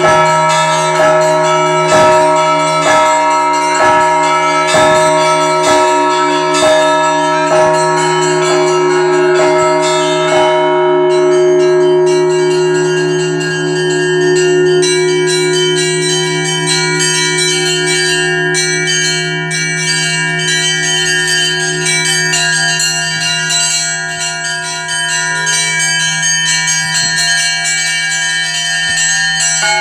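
Russian Orthodox church bells ringing a festive Easter peal: small bells struck in rapid patterns over the long hum of a large bell. Heavy strokes come about once a second for the first ten seconds or so, then ease off while the lighter bells ring on.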